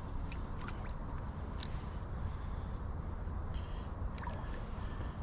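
Steady high-pitched drone of insects with a low rumble of moving air or water underneath and a few faint ticks.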